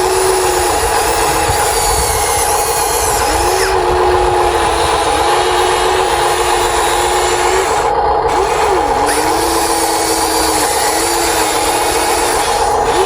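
Small electric motors and plastic gearboxes of radio-controlled construction models whining, the pitch dropping and rising again several times as the throttle is let off and opened.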